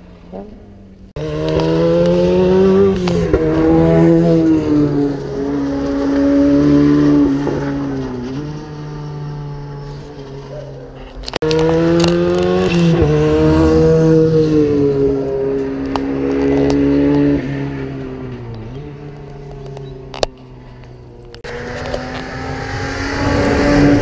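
Rally car engines revving hard on a tarmac stage, the note climbing under acceleration and dropping at gear changes and lifts, across several passes joined by abrupt cuts.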